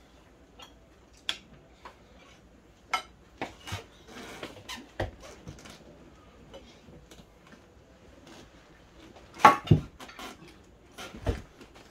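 Metal forks and spoons clinking and scraping against ceramic plates during a meal. The knocks are irregular, with the loudest pair about nine and a half seconds in and another near the end.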